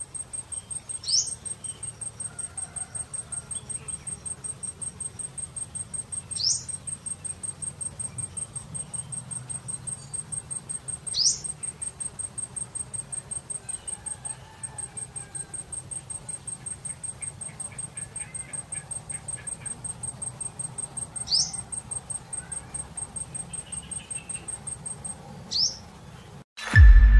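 Insect chirping in a fast, even train of very high ticks, with a short rising call cutting in about every five seconds over a faint low hum. Near the end the chirping stops and loud music comes in.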